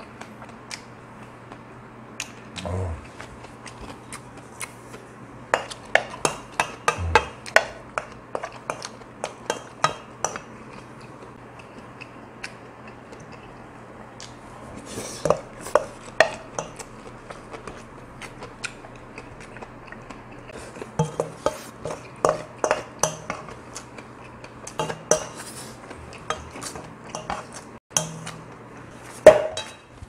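Wooden spoon scraping and knocking against a large stainless-steel bowl in bursts of quick strokes, scraping up the last of the rice. A single louder knock comes near the end.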